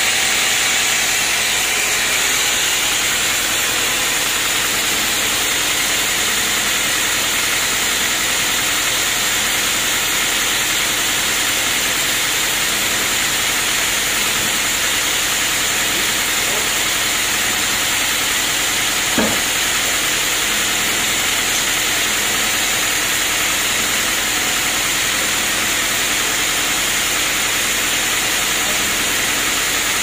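Band sawmill running without cutting: a steady machine noise with a strong hiss. One short knock about two-thirds of the way through.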